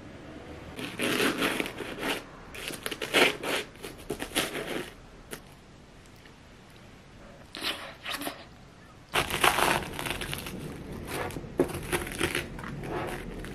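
Crisp, long-baked puff pastry crust of a pot pie crunching and crackling as a wooden spoon breaks into it. The crackle comes in several bursts with a quieter pause in the middle.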